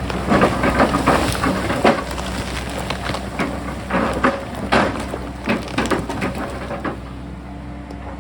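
Sany excavator working: its diesel engine runs with a steady low drone while the bucket breaks and scrapes rock and soil, giving a run of irregular cracks, knocks and crunches that die away about seven seconds in.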